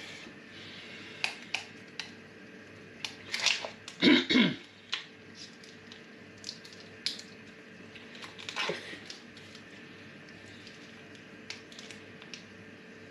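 Small plastic stock-pot tubs being opened and squeezed out: scattered clicks, crinkles and snaps of plastic and foil. A loud throat clearing about four seconds in.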